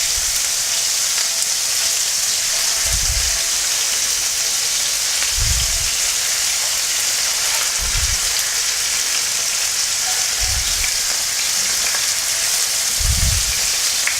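Marinated sardines frying in hot coconut oil on a medium flame: a steady, even sizzle.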